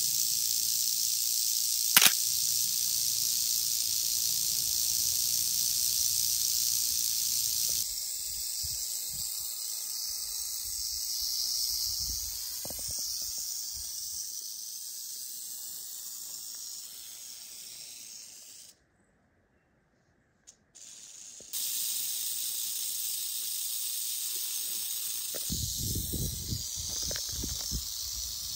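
Timber rattlesnake rattling its tail: a steady high buzz, its warning signal. There is a sharp click about two seconds in. The buzz grows fainter after about eight seconds, drops out for a few seconds past the middle, and then returns.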